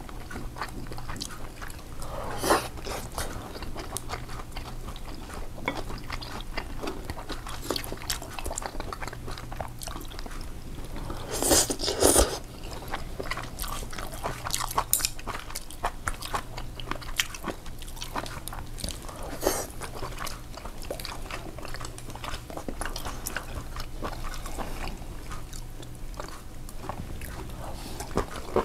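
Close-up eating sounds: a person chewing and biting food, with many small wet clicks and a few louder knocks, the loudest about twelve seconds in. A steady low hum runs underneath.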